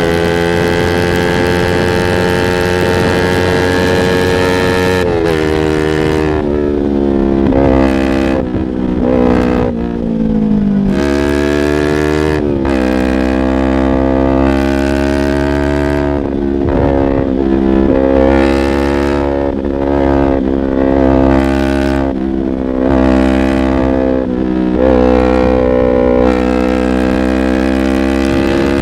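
Yamaha R25's 249 cc parallel-twin engine running through a Proliner aftermarket exhaust under way, its pitch rising and falling with the throttle. The pitch steps down about five seconds in and again around ten to eleven seconds in.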